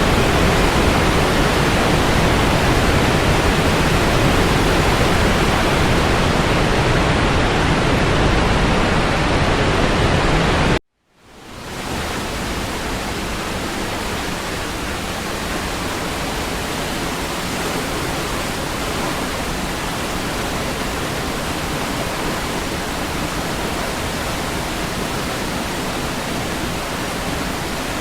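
Niagara Falls' water rushing steadily. About eleven seconds in it cuts out for a split second, then comes back a little quieter.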